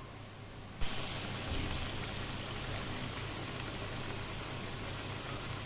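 Food sizzling in hot oil, a steady hiss that jumps up suddenly about a second in.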